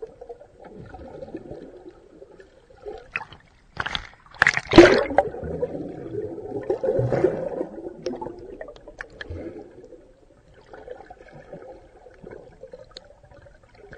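Muffled underwater sloshing and gurgling of sea water, heard through a waterproof action-camera housing as a swimmer kicks with fins close by. Scattered clicks run through it, and a loud rush of water comes about four to five seconds in.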